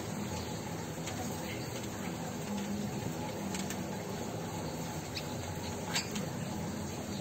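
Light rustling of a sheet of white paper being handled and folded by hand, with a few small clicks, the sharpest about six seconds in, over steady background noise.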